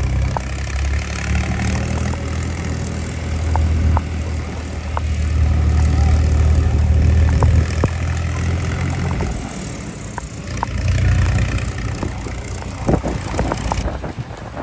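Tractor's diesel engine running close by, a low steady drone that grows louder, then falls away about nine seconds in and briefly returns. Scattered light clicks sound over it.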